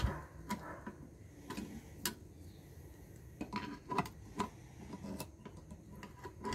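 Scattered light metallic clicks and clinks of locking pliers and an Allen key being set against the shaft nut of a cast-iron water pump, a few of them ringing briefly around the middle.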